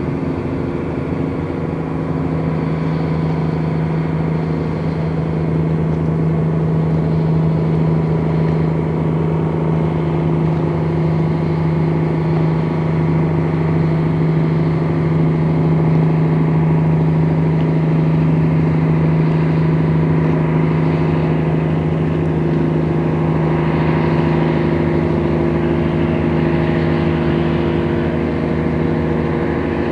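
Steady engine drone from the passing container ship and its tugboat, one deep hum with higher tones above it, growing a little louder as the vessels come abeam. A hiss joins in for a few seconds near the end.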